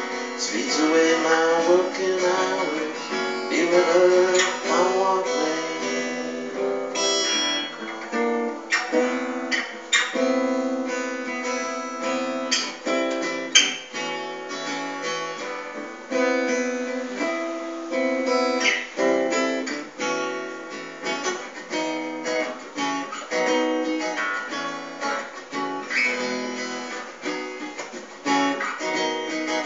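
Solo acoustic guitar strummed and picked, a steady run of chords in an instrumental stretch of a folk-blues song with no singing.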